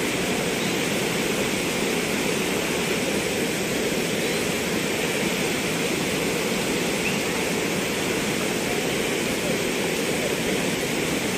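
Steady rushing noise that holds even throughout, with no distinct knocks, calls or voices standing out.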